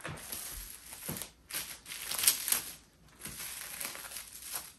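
Plastic cling wrap crinkling as hands fold it around a block of cookie dough, in a run of irregular scrunches with the loudest around the middle.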